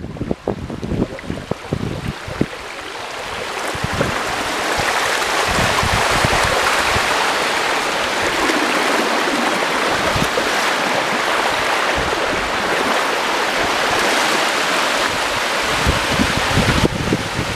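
Deep floodwater rushing and sloshing, building over the first few seconds into a steady loud rush. Low gusty thumps of wind on the microphone come early on.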